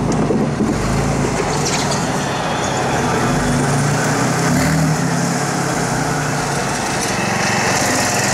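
Race-modified Ford tractor engine running at low revs under light load as the tractor is driven up loading ramps into a trailer. Its note wavers slightly and grows fainter after about five seconds.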